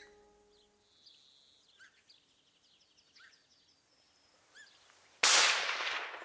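A single loud hunting-rifle shot about five seconds in, dying away over about a second. Before it, faint bird chirps.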